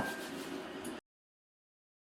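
A single light clink of kitchen ware with a short ring, over a faint steady background, then the sound cuts off abruptly to dead silence about halfway through.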